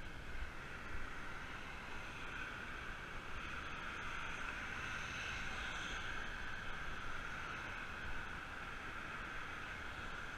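Steady rush of wind and road noise picked up by a camera on a moving road bike, with motor traffic going by. The rush swells a little about halfway through.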